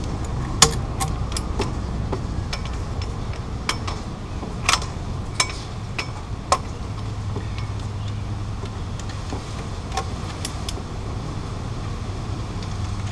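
Irregular metallic clicks and clinks of a socket wrench snugging bolts down at the flywheel. A steady low hum runs underneath, and the clicks thin out after about seven seconds.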